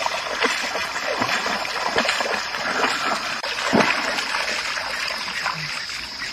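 A lioness wading through shallow river water, her paws splashing in an irregular run of steps, with one louder splash nearly four seconds in. A steady high insect buzz runs underneath.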